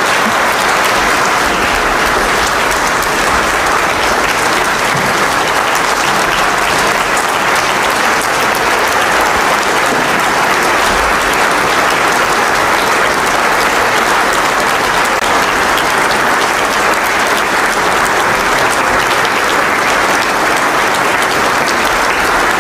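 Large audience in a conference hall applauding: dense, steady clapping that holds at an even level throughout.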